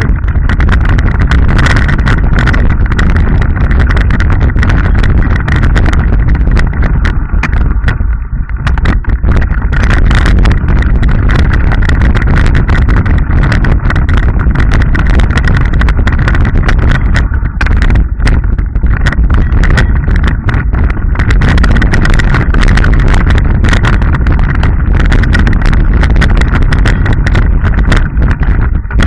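Mountain bike speeding down a rough, rocky dirt trail, heard through a camera mounted on the bike: a constant loud rumble with dense rattling and knocking as the bike shakes over stones and roots, easing briefly twice.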